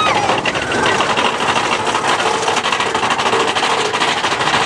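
Big Thunder Mountain Railroad mine-train roller coaster cars rattling and clattering fast along the track, with a rider's whoop at the very start.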